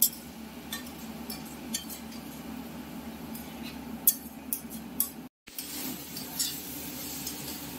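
Metal spatula stirring masala in a kadai, clinking and scraping against the pan in scattered sharp clicks over a steady low background hum.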